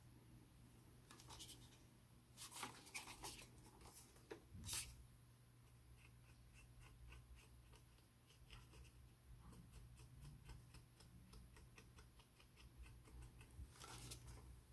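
Faint scratchy rubbing of a cotton swab dampened with thinner on the plastic model cup, in quick short strokes, as painted lines are cleaned off, with a few louder handling rustles a few seconds in.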